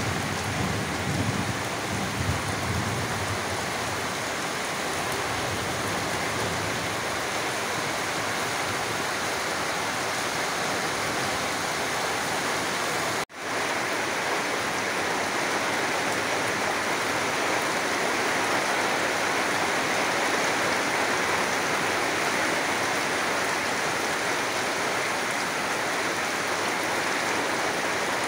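Heavy rain pouring steadily on trees and corrugated tin roofs, with a momentary cut-out about halfway through.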